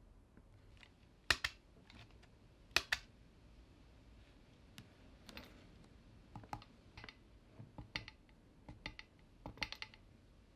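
Sharp clicks: two loud double clicks in the first three seconds, then a scattered run of lighter clicks.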